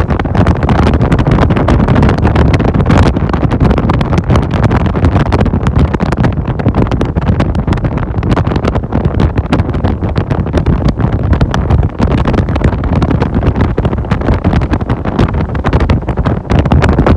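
Heavy wind buffeting the microphone over a bass boat's outboard motor running at speed across the water.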